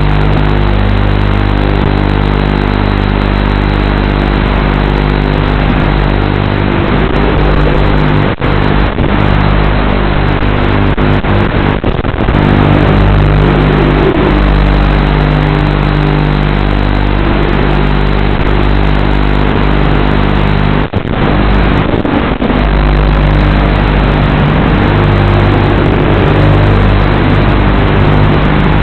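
FPV racing quadcopter's brushless motors picked up by the onboard camera's microphone, loud and continuous, with brief dips several times as the throttle is cut.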